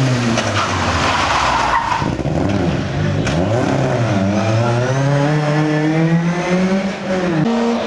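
Rally car engine revving hard: its pitch swings down and back up with lifts and gear changes, dipping about four seconds in and climbing again, with a rush of noise about two seconds in and an abrupt shift near the end.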